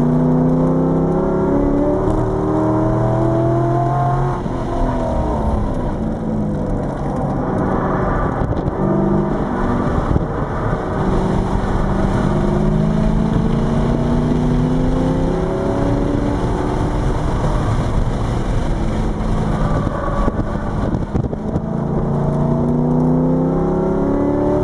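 Chevrolet Corvette C5 Z06's LS6 V8, heard from inside the cabin while driven hard on a track. It climbs in pitch under acceleration and drops back at shifts and braking several times, over wind and tyre noise.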